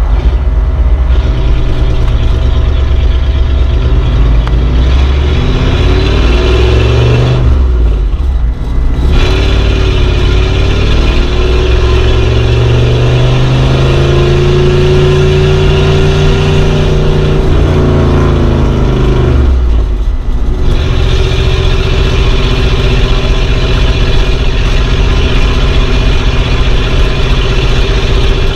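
Old car engine running while driving, its pitch rising and falling as the revs change, with two brief dips about eight and twenty seconds in.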